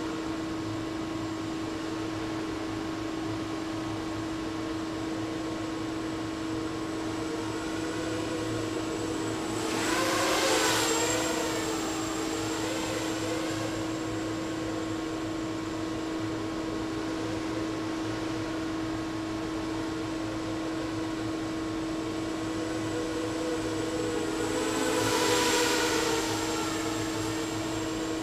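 Diatone 250 racing quadcopter passing twice, its propeller whine swelling and bending in pitch as it goes by, about ten seconds in and again near the end. Underneath runs a steady hum.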